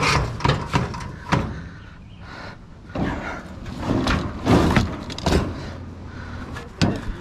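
A string of irregular knocks and clunks, like hard objects being handled and set down.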